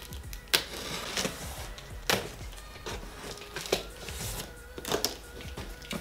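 Packing tape on a cardboard shipping box being slit and the box flaps pulled open: a string of sharp, irregular crackles and rustles of tape and cardboard, over faint background music.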